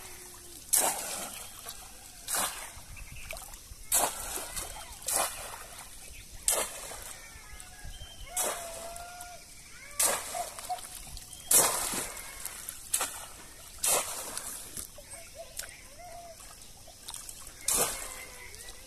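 Bamboo plunge basket (polo fish trap) slapped down into river water over and over, about a dozen sharp splashes spaced every second and a half or so, with water sloshing around a wading person between strikes.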